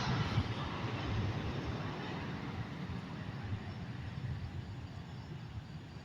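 Low, fluctuating outdoor rumble of background noise, slowly fading, with no distinct events.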